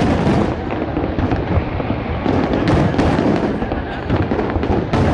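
Fireworks going off in a dense, continuous barrage: many overlapping bangs and crackles with deep booms, without a pause.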